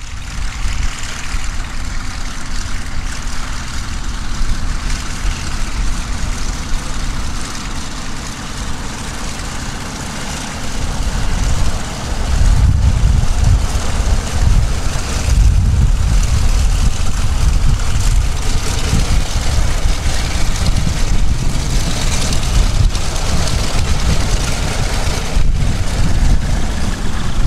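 Vought F4U Corsair's Pratt & Whitney R-2800 radial engine running at taxi power. It grows louder and deeper about twelve seconds in, then holds steady.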